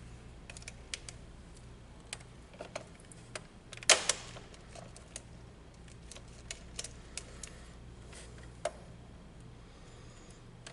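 Light, scattered clicks and ticks of a plastic GFCI circuit breaker and its copper wire being handled, with one sharper click about four seconds in, over a faint low steady hum.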